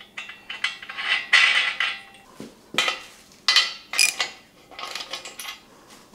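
Steel parts of a shop crane clinking and clanking irregularly as they are handled and fitted, with the loudest clanks about a second in and again around three to four seconds in.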